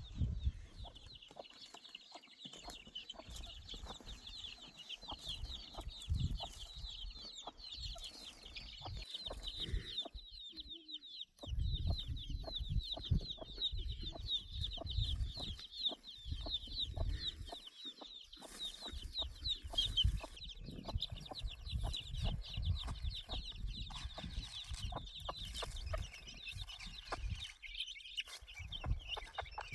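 Chickens calling: a continuous chatter of many short, high cheeps, over a low rumble with scattered knocks.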